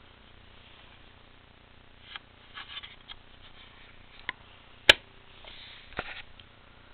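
Plastic Sailor Moon Prism toy locket being handled: small clicks and rustles about two to three seconds in as the lid is shut, then a sharp click a little before five seconds in, the loudest sound, and a knock about a second later.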